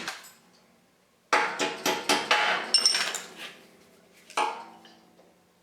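Metal-on-metal knocking and rattling as the belt grinder's cast pivot assembly is worked loose and taken off: a sharp knock, then a quick run of clanks with brief ringing, and one more knock near the end.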